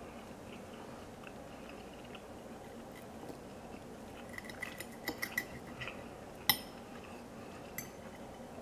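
Metal fork clinking and scraping against a ceramic plate while pulling apart tender meat: a run of light clicks about halfway through, then one sharp ringing clink and a lighter one near the end.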